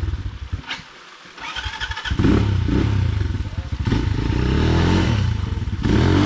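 Dirt bike engine revving hard: a short burst, a brief drop-off about a second in, then sustained high revs with the pitch swinging up and down as the throttle is worked.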